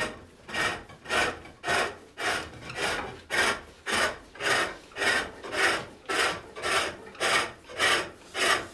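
Hook tool cutting wood on a pole lathe: a rhythmic shaving sound, one cut with each downstroke of the treadle, about two a second with short quiet returns between, as the boxy bottom of a turned wooden box is taken down.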